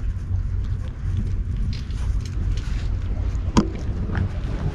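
Steady low rumble of wind and handling noise on a GoPro's microphone, with scattered faint clicks and one sharp knock about three and a half seconds in.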